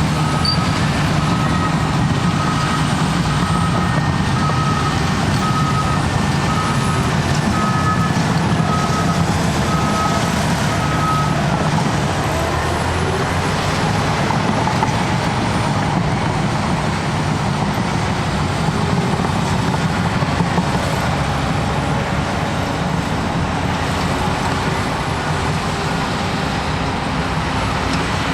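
Cat D6T bulldozer's diesel engine running steadily under work, with its reversing alarm beeping about once a second for the first eleven seconds or so while the dozer backs up, then stopping.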